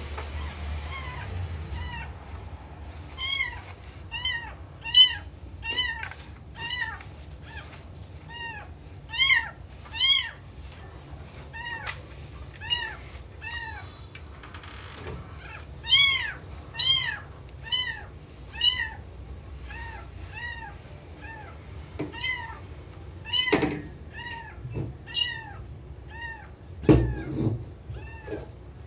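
A cat meowing over and over, short rising-and-falling mews one or two a second, some much louder than others. Near the end come a couple of dull thumps.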